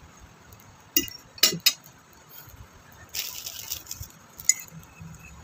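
A spoon clinking a few times against a plate or glass while eating: three sharp clinks about a second in and another near the end, with a brief rustle a little after three seconds.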